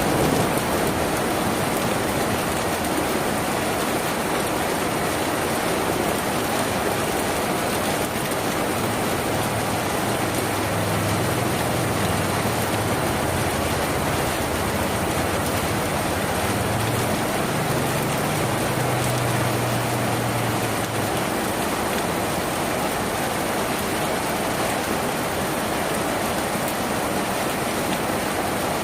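Steady heavy rain drumming on a tin roof, an even hiss with no letup. A low rumble comes and goes in the middle.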